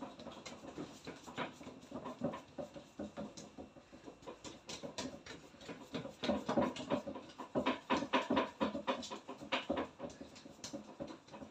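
Hands patting and working semolina dough for makrout, a run of irregular soft pats and taps that come thicker in the second half.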